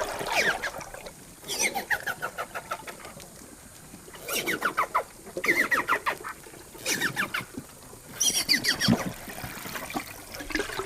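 Amazon river dolphin calls: repeated bursts of rapid clicks mixed with falling, squeaky chirps, about six bursts a second or two apart.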